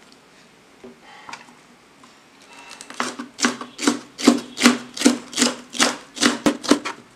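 Kitchen knife slicing a green capsicum into thin julienne strips, each stroke knocking on the cutting board. The slicing starts about three seconds in at about three strokes a second and quickens near the end.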